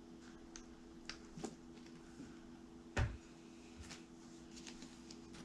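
Quiet handling of a plastic squeeze bottle of acrylic paint: a few light clicks, then one sharp knock with a dull thump about three seconds in as the bottle is set down on the table, and a few more small clicks after it. A faint steady hum runs underneath.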